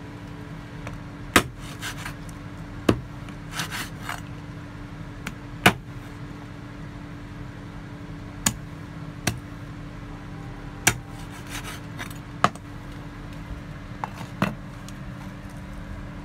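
Meat cleaver chopping through chicken on a wooden cutting board: about eight hard chops at irregular intervals a second or two apart, with lighter taps and scrapes of the blade between. A steady low hum runs underneath.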